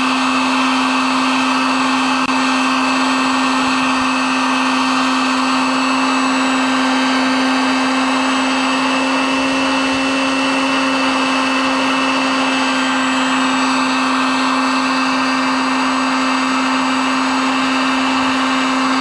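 Heat gun running steadily, its fan blowing with a constant hum, while it melts plastic to weld a patch onto a plastic boat hull.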